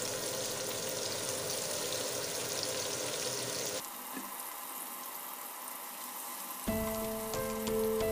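Sliced onions sizzling as they fry in oil in a nonstick frying pan; the sizzle drops quieter about four seconds in. Background music with a stepping melody comes in near the end.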